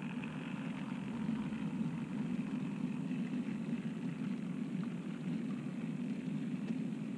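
OO gauge model cattle wagons rolling past on the track: a steady low rumble of wheels on rails.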